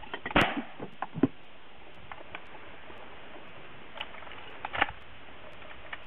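A few sharp knocks over a steady background: the loudest about half a second in, a weaker one about a second later, and a short cluster near the end.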